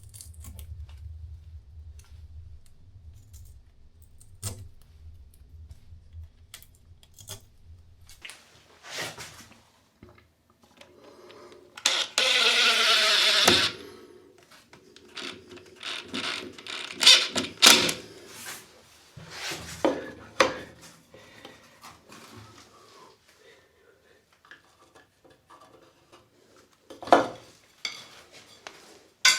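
DIY plumbing work at close range: scattered knocks, clicks and clatter of tools and parts being handled, with a power tool running for about a second and a half near the middle, its pitch falling as it stops.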